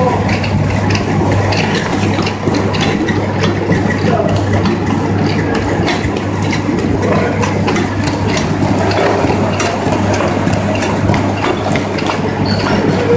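Automatic paper creasing machine running: a steady motor hum with frequent irregular clicks and clatter as printed sheets feed through its belts and rollers.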